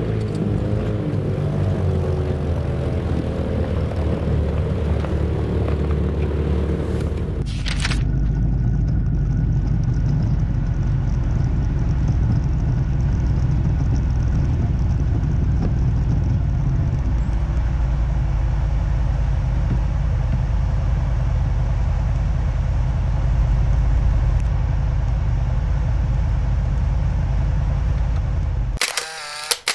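Off-road vehicle driving over a rough mountain track: a steady low rumble of engine and drivetrain. About seven and a half seconds in, a click, after which the rumble is heavier and deeper. Near the end it cuts off abruptly, followed by a few sharp clicks.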